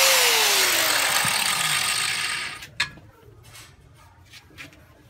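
Angle grinder with a flap disc switched off and spinning down, its whine falling in pitch and fading away over about two and a half seconds. A single sharp knock follows, then a few faint light clicks.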